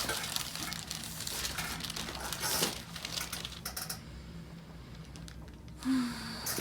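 Rustling and light clicking of hands, clothing and the padded table during handling on a chiropractic table, dying down after about four seconds, with one short low tone near the end.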